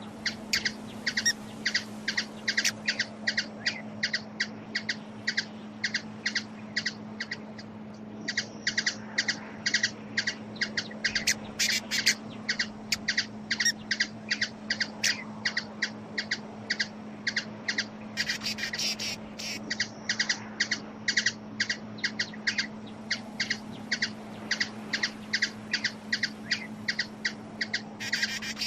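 Hummingbird giving short, sharp high chip calls, about three a second, with a brief pause about seven seconds in, over a steady low hum.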